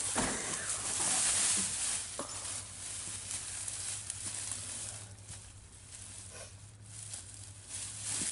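Pine boughs thrashing and dry leaves crunching as a man comes down out of a pine tree and lands in leaf litter among fallen branches. The rustling is loudest in the first couple of seconds, then thins to lighter rustles as he shifts on the ground.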